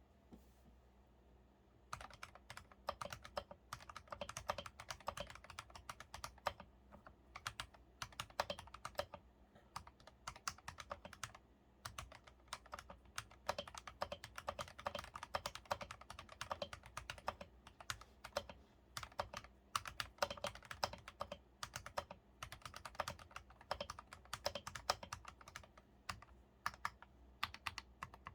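Typing on a foamed KBM68 mechanical keyboard fitted with Akko Starfish jelly linear switches (50 g): a fast, uneven stream of key strikes that starts about two seconds in, after a brief pause.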